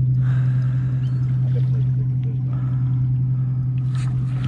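Boat engine running steadily: a constant low hum that does not change.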